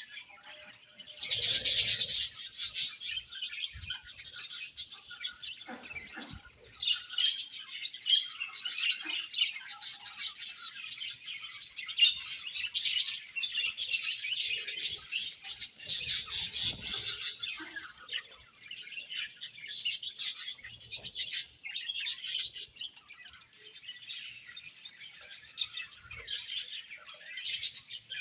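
A flock of budgerigars chirping and warbling together in a continuous, overlapping chatter, with louder flurries every few seconds.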